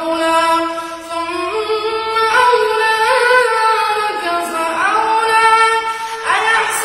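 Solo voice in melodic Quran recitation (tajweed), holding long high notes with ornamented glides between pitches.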